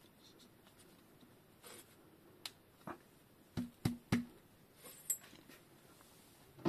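Handling noise from the lower legs of a RockShox Judy fork: a few light clicks, then three hollow knocks in quick succession about halfway through, and a sharper, louder knock at the very end.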